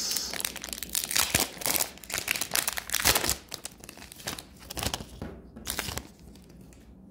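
A hockey card pack's wrapper crinkling and tearing as it is opened by hand, with cards handled and slid out. Dense crackling with many sharp clicks that dies down after about six seconds.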